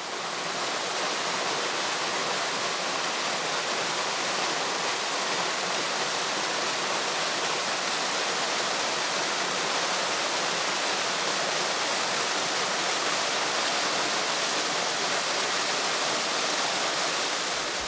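Waterfall pouring over rock, a steady, unbroken rush of falling water.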